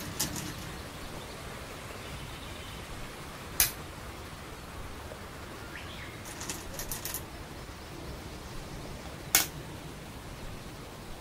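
Go stones clacking down onto a wooden board: sharp single clicks just after the start, about three and a half seconds in and again near the end. A short run of lighter clicks falls between them, over a steady low hiss.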